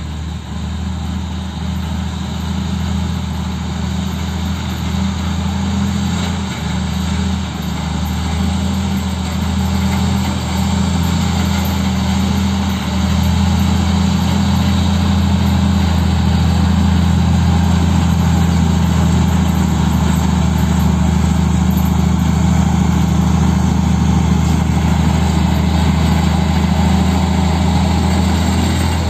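Diesel engines running steadily: a light dump truck stuck in deep mud and a Komatsu D85E crawler bulldozer working right beside it. The sound grows louder over the first dozen seconds, then holds level.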